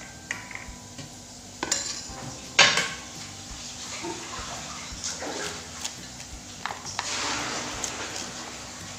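Plastic bowls and a corn cob knocking on a tabletop as they are set out, with the loudest knock about two and a half seconds in. Near the end comes a rasping scrape of a knife slicing kernels off a sweet corn cob, the kernels dropping into a plastic bowl.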